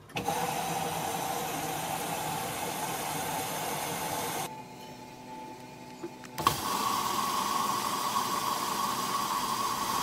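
Whirlpool front-loading washing machine running its wash cycle: motor hum and the drum turning its wet, sudsy load. The sound drops quieter for about two seconds past the middle, then after a click it comes back louder with a higher, steady hum.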